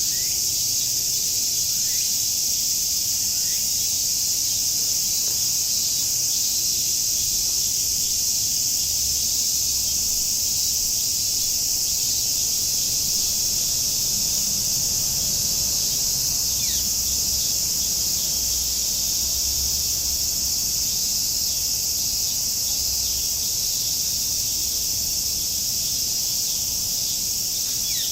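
Cicadas buzzing in a steady, unbroken chorus, with a few faint short bird calls scattered through.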